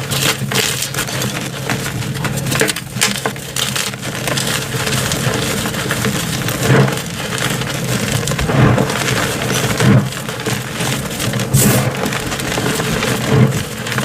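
Coloured gym chalk reforms being crushed: continuous crisp crunching and crackling, with louder crunches now and then, over a faint steady low hum.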